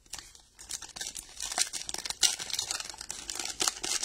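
Foil trading-card pack being torn open by hand, its wrapper crinkling and crackling in a dense run of sharp clicks that grows louder after about a second.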